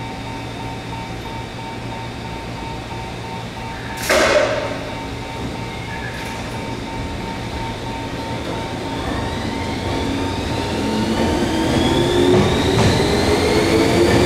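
JR 211 series electric train humming steadily at the platform, with a short, loud hiss of air about four seconds in. From about nine seconds in, its traction motors whine, rising in pitch and growing louder as the train pulls away.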